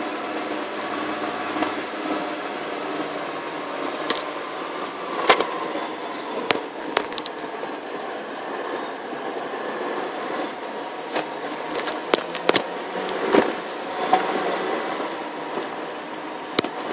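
Steady road and engine noise of a car driving at highway speed, heard from inside, with scattered sharp knocks and rattles, the loudest about five seconds in.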